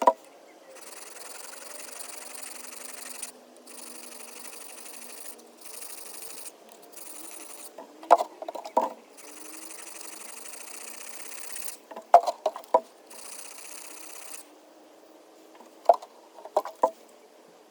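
Blade being drawn across a sharpening stone in long scraping strokes of one to two seconds each, with short pauses between them. Three times a quick cluster of sharp clicks or knocks cuts in, louder than the strokes.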